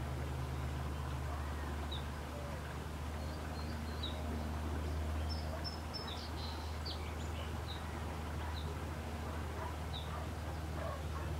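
Wild birds calling: one short high chirp repeats every second and a half or so, with a brief flurry of several calls about halfway through, over a steady low background rumble.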